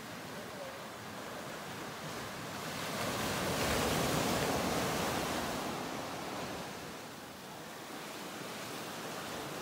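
Ocean surf: a wave washing in as a broad rush that swells to a peak about four seconds in and then ebbs away.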